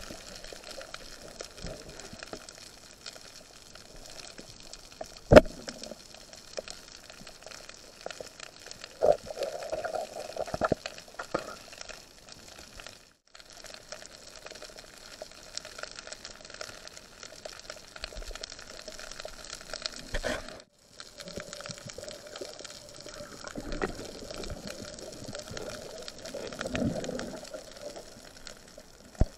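Underwater sound heard through a camera housing while swimming: muffled water movement and bubbling, with scattered small clicks and one sharp knock about five seconds in.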